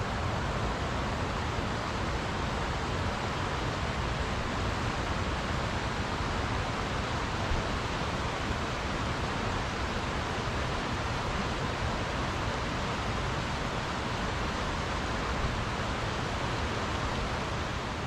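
Steady rush of flowing water from a stream, an even hiss with no breaks.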